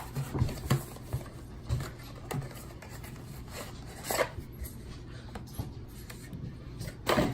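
Scattered rustles and light knocks from handling the packaging and the collapsed inflatable solar lantern as it is pulled open, over a faint steady low hum. The sharpest knock comes near the end.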